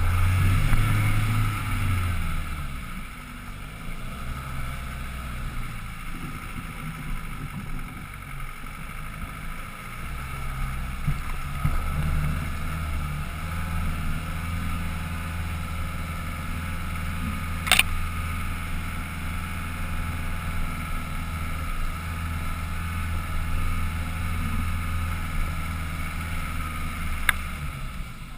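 Land Rover Defender 110's engine pulling at low revs up a rough off-road climb, a steady low drone that drops back after the first few seconds. Two sharp knocks stand out, one a little past the middle and one near the end.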